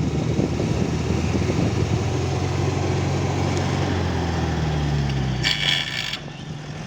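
Truck's diesel engine running, its note rising a little partway through, with a short hiss about five and a half seconds in.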